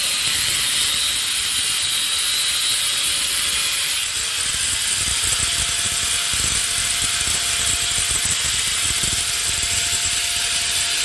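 A machine running steadily: a loud, even hiss over a low rumble, with a faint steady whine joining about five seconds in.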